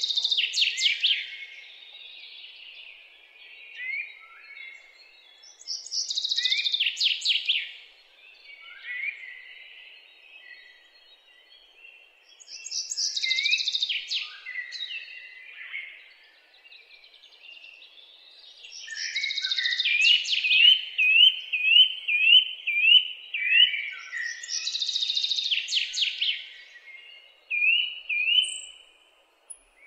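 Birds singing: a loud, high, fast phrase recurs about every six seconds, with softer chirps between, and in the second half a run of short rising notes at about two a second.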